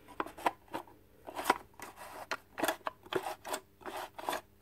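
Small nut being tightened on the metal blade-guard linkage plate of an Einhell mitre saw: a string of short metallic clicks and scrapes, about three a second, unevenly spaced.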